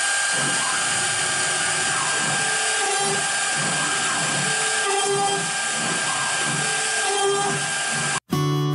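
CNC router spindle whining steadily while its small bit cuts into quarter-inch fir plywood, with a grinding that rises and falls as the bit moves through the wood. The machine sound cuts off suddenly near the end and guitar music begins.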